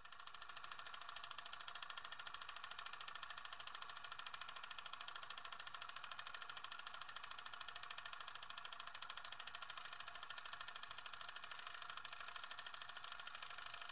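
Film projector running, a steady, rapid mechanical clatter of the film being pulled through the gate.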